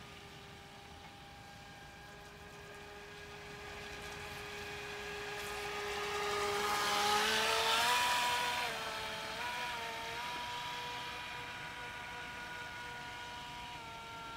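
Whine of a radio-controlled jet ski's brushless 380 electric motor running at steady throttle. About halfway through it speeds up to a higher pitch, with a rush of water hiss that is loudest just past the middle. The pitch wavers a few times, then holds steady.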